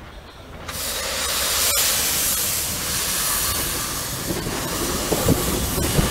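Narrow gauge 0-4-0 saddle tank steam locomotive hissing steam steadily as it moves off, the hiss starting about a second in.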